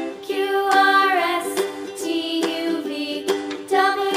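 Background music with singing and a rhythmic plucked accompaniment.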